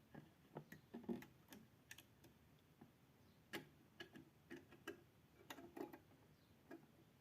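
Faint, irregular clicks and taps of small hard parts being handled and fitted during a PC build, about twenty in all, some in quick pairs.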